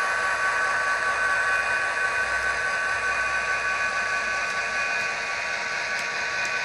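Class 67 diesel engine sound played by an N gauge model locomotive's DCC sound decoder through its tiny speaker as the loco runs: a steady hissing whine with a few held high tones and little low end.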